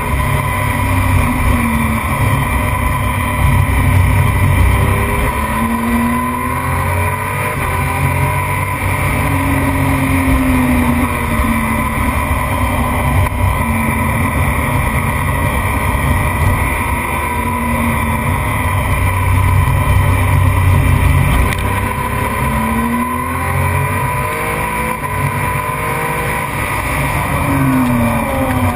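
Motorcycle engine heard onboard at racing pace, its pitch rising and falling again and again as it revs up and shifts through the gears, under a steady rush of wind on the microphone.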